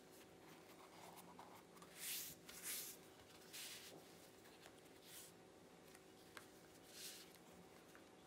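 A flour tortilla being folded and pressed flat by hand on a wooden cutting board: about five soft rubbing swishes as it slides and creases, the loudest two around two and three seconds in.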